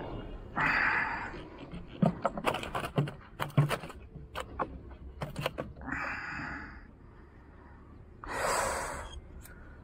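A landed snakehead and its frog lure being handled on a wooden boat's planks: a run of sharp clicks and knocks in the middle, set between three short breathy hissing bursts.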